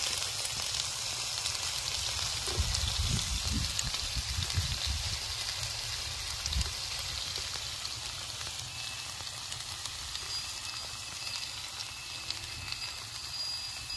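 Pork sizzling on a hot gopdol stone griddle: a steady hiss of fat frying with small crackling pops, and a few dull bumps between about two and seven seconds in.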